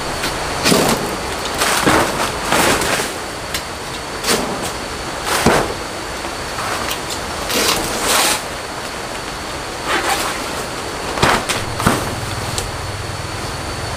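Banana leaf stalks being hacked with a knife: about ten short chopping and swishing strokes, a second or so apart, with the big leaves rustling.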